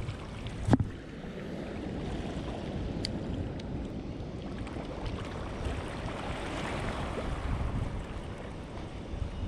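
Wind buffeting the microphone over the wash of sea water, a steady rough rush. A single sharp knock comes just under a second in.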